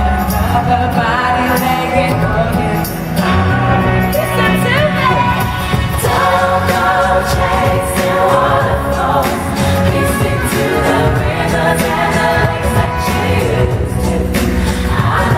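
Live pop song: a female vocal group singing in harmony over band backing, recorded from the audience.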